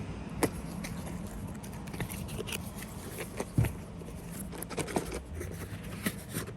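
Cardboard box being handled and opened: scattered scrapes, rustles and small knocks, the loudest knock a little past halfway.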